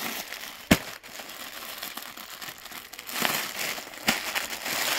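Clear plastic poly packaging crinkling and rustling as a wrapped clothing pack is handled and unwrapped, with a sharp knock about a second in and another near the end.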